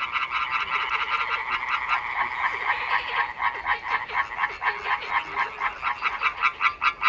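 A chorus of male tree frogs calling, with several frogs overlapping in quick pulsed calls repeated several times a second.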